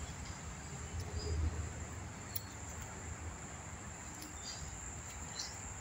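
Steady high-pitched insect drone, with a low rumble that swells briefly about a second in.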